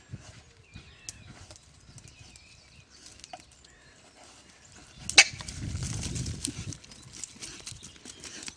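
Pigs making low, scattered sounds as they forage. About five seconds in, a pig touches the electric fence and gets shocked: a sudden sharp, loud sound, followed by about a second and a half of louder commotion as it reacts.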